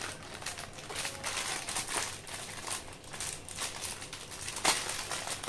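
Metallised foil snack packet crinkling as it is cut open with scissors and handled, a run of short sharp crackles with a louder one near the end.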